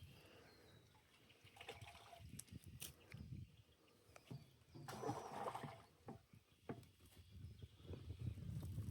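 Faint water sloshing and splashing, with scattered small knocks and a brief louder splash about five seconds in.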